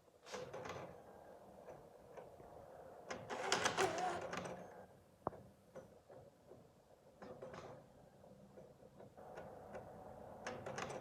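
Mechanical clicking and whirring from an unidentified machine: scattered sharp clicks, with a louder stretch of whirring and a wavering tone about three to five seconds in. It is the unwanted noise that its owner wants explained and fixed.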